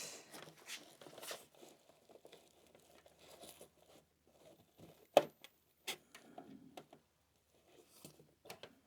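Backpack strap and webbing being handled and positioned: fabric rustling and scattered small knocks, with one sharp click about five seconds in.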